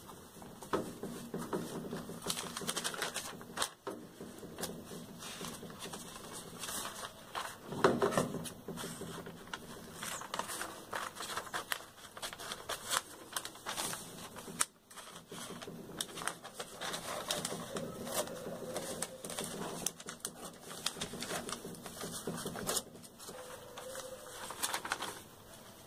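Scissors cutting through magazine and newspaper pages: many short, crisp snips, with paper rustling as the sheets are handled.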